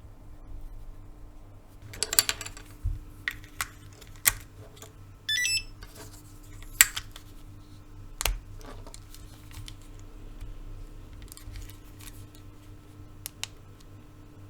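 A StarLine car alarm key fob giving one short stepped electronic beep about five seconds in. Around it are scattered sharp clicks and taps, the loudest bunched around two and seven seconds in.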